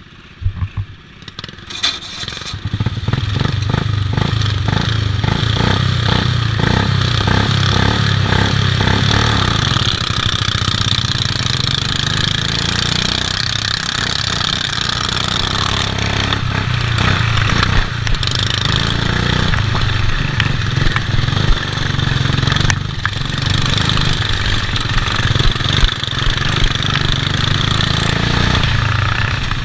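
Racing ride-on lawn mower's petrol engine running hard at full throttle, heard from on board, with other racing mowers close by. The engine note builds up within the first two or three seconds, then holds steady, with occasional sharp knocks as the mower bounces over the rough grass track.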